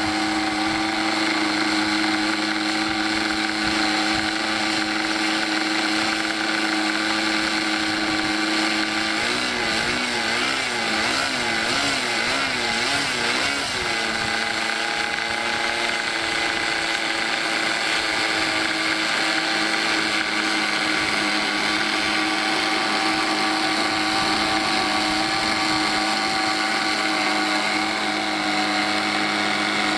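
Small model-aircraft engine in a Hangar 9 P-51 Mustang running steadily at idle on the ground, its pitch wavering up and down for a few seconds about a third of the way in before settling again.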